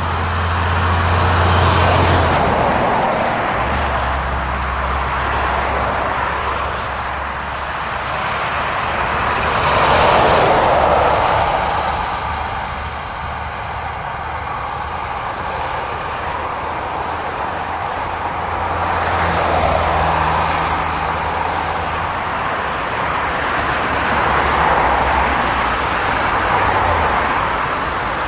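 Lorries and cars passing on a dual carriageway: diesel engine drone and tyre noise, swelling and fading several times as each vehicle goes by, loudest about ten seconds in.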